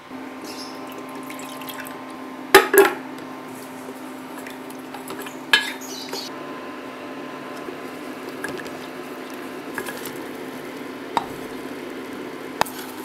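Wooden spoon stirring a milk and chocolate mixture in a stainless steel saucepan, with a few sharp knocks of the spoon against the pan, the loudest two close together about two and a half seconds in. A steady low hum runs underneath.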